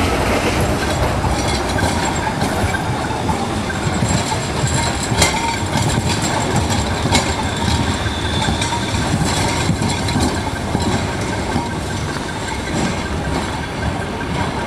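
Articulated electric tram rolling through a curved street-track junction: a steady rumble of wheels on the rails, broken by sharp clacks as the wheels cross the switches and crossings, the loudest about five seconds in. It gets a little quieter near the end as the tram moves off.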